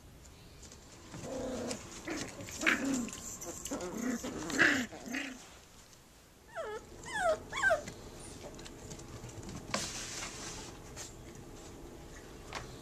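Jack Russell terrier puppies growling at play, then a few short high whimpers that fall in pitch.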